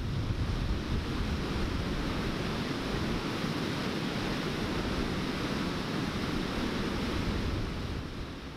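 Water pouring over a river weir, a steady rushing roar of white water, fading out near the end.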